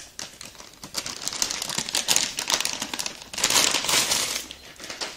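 Metallised antistatic bag crinkling as a graphics card is pulled out of it: a run of crackly rustles, loudest about three and a half seconds in, then fading out near the end.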